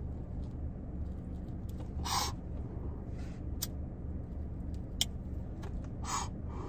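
A lighter clicking as a blunt is lit and puffed on: two short breathy draws, about two seconds in and near the end, with a couple of sharp clicks between them, over a steady low hum.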